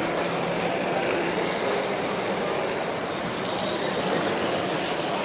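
Large-scale model steam locomotive and its coaches running along the layout track, a steady rolling noise with a faint hum.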